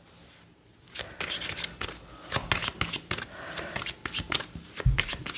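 A tarot deck being shuffled by hand, heard as a quick, irregular run of crisp card snaps and slaps starting about a second in.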